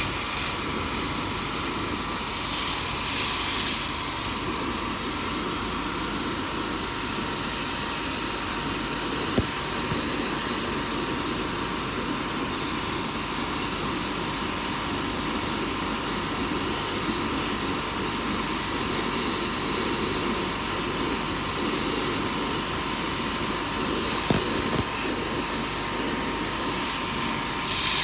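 High-pressure washer running steadily, its motor and water jet spraying into an air conditioner to flush out mould and dust, with a faint steady whine through the hiss. It stops suddenly at the end.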